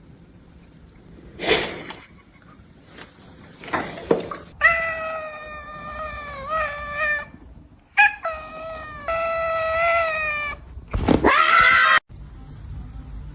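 A cat yowling in long, drawn-out calls: two held for a couple of seconds each, then a louder call that rises in pitch and cuts off suddenly near the end.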